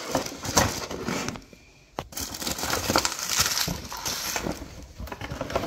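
Cardboard toy box being opened and emptied: rustling and scraping of the packaging, with a clear plastic bag of parts crinkling as it is pulled out. A brief lull and a single sharp click come about two seconds in.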